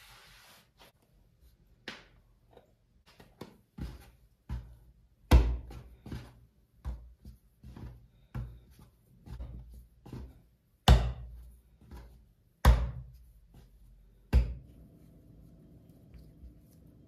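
Dough being kneaded by hand on a floured wooden board: irregular thumps and slaps as it is pressed and turned, with four much louder thumps where it is slammed down. A brief brushing hiss at the start as flour is spread across the board.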